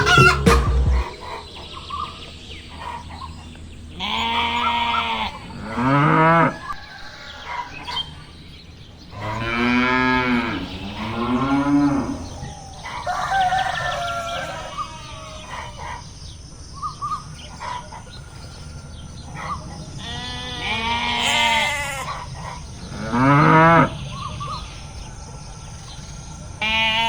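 Cattle mooing: a series of long, drawn-out moos whose pitch rises and falls, with pauses of several seconds between them.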